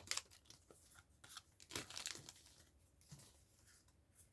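Faint, scattered crinkles and rustles of a foil Pokémon booster pack wrapper being handled, with a few soft ticks, strongest in the first half.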